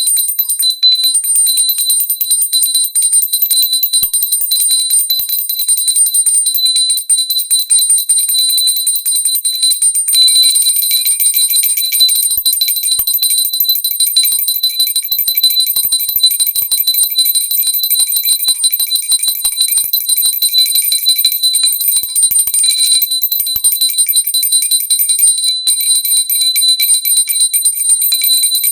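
Pooja bell rung continuously, its clapper striking so rapidly that the strikes run together into one steady, high-pitched ring.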